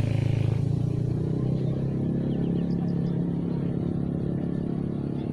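A small engine running steadily, a low hum that wavers slightly in pitch.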